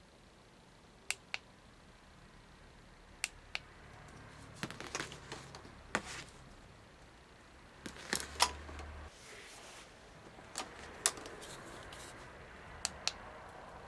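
Plastic light-up toy wands being handled: sharp plastic clicks, several in quick pairs, with light rattling and rubbing of the plastic sticks in between.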